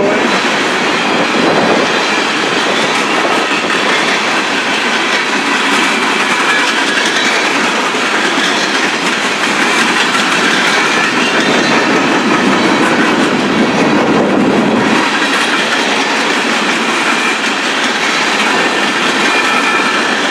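Coal gondola cars of a long freight train rolling past close by: a steady clatter of steel wheels on the rails, with faint thin high squealing tones over it.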